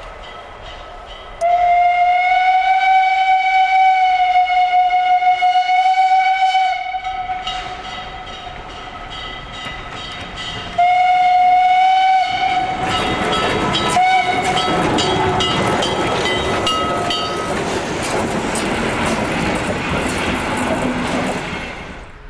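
Steam locomotive whistle blown in one long blast of about five seconds, then a shorter blast and a brief toot. The locomotive then runs past close by, its dense, clattering running noise loud until it fades near the end.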